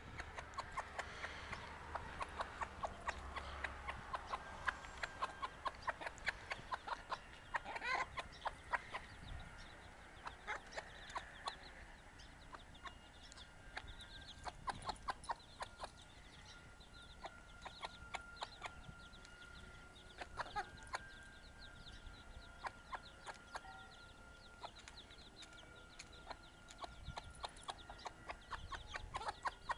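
A hen clucking and her baby chicks peeping as they peck at food, many short calls and sharp little sounds following one another throughout.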